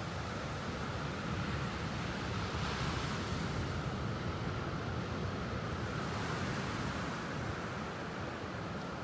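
Steady outdoor wash of surf and wind, swelling a little about three seconds in.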